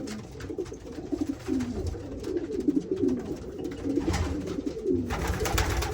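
Racing pigeon cock birds cooing over one another, a continuous run of low warbling coos.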